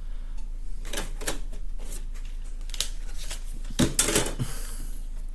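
A plastic CD jewel case being handled: scattered clicks and rattles, with a louder cluster of knocks about four seconds in, as the booklet is worked out of the case.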